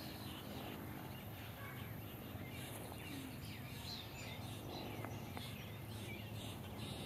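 Quiet outdoor ambience: small birds chirping over a low, steady hum, the chirping becoming busier a few seconds in.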